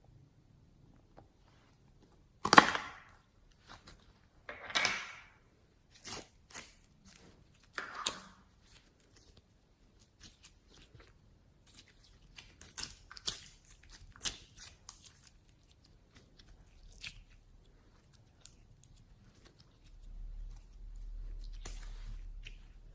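Slime being worked by hand, giving a series of short crackling, crunchy bursts, the loudest about two and a half seconds in. A low hum comes in near the end.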